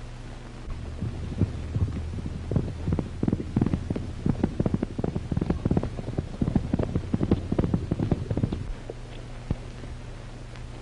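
Galloping horse hoofbeats, a fast irregular drumming of thuds that starts about a second in and stops near nine seconds. Under it runs the low steady hum of an old 1930s film soundtrack.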